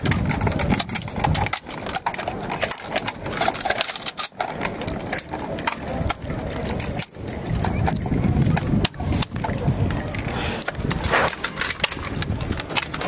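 Irregular metallic clicks and clacks of rifle and light machine gun parts being handled and fitted together during timed weapon assembly, over a murmur of background voices.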